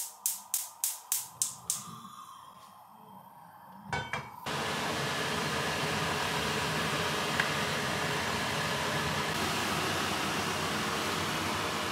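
Gas stove burner being lit: the piezo igniter clicks about four times a second, stops, then clicks a few more times about four seconds in before the burner catches. From then on the lit burner gives a steady rushing hiss.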